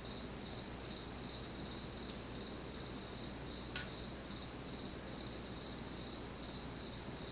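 Steady high-pitched chirping, pulsing about four times a second, typical of a cricket in the background. A single sharp click sounds just under four seconds in, from the lock being picked.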